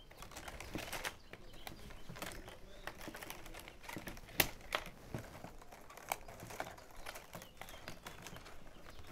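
Plastic baling straps clicking and rubbing as strap ends are hard-folded and tucked under the weave of a woven basket: irregular sharp clicks, the loudest about four and a half seconds in.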